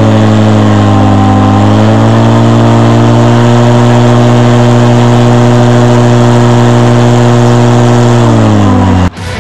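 Airboat's stock Yamaha Apex four-stroke engine and Whirlwind Excalibur propeller running loud and steady at high revs, the pitch rising slightly about two seconds in and dropping near the end. It cuts off abruptly just before the end, giving way to heavy rock music.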